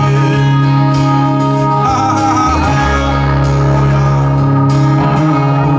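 Live pop-rock band playing through a concert PA, with acoustic guitar and held bass notes that change every second or so, and a little singing in the middle.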